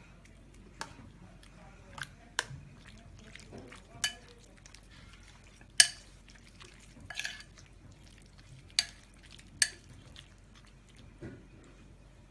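A spoon clinking and scraping against a bowl while stirring, in a dozen or so irregular sharp clinks, the loudest about six seconds in.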